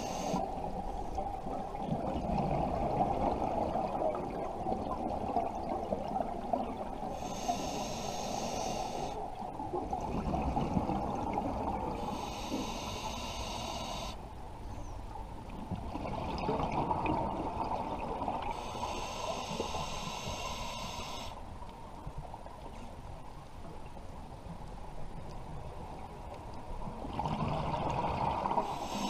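Scuba diver breathing through a regulator underwater: a hiss on each inhale, four times a few seconds apart, and a muffled bubbling rumble of exhaled air between them.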